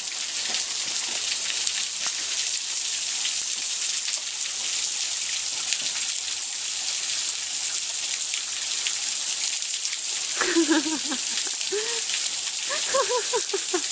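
Small waterfall: a steady hiss and patter of falling, splashing water. A voice breaks in briefly near the end.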